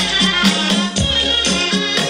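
Kinnauri folk dance music: a quick, steady drumbeat under a sustained melody.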